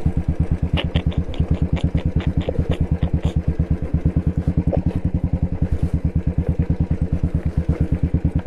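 Royal Enfield Bullet's single-cylinder engine running at low, steady revs with an even thump of about ten beats a second. A run of light clicks sounds over it in the first few seconds.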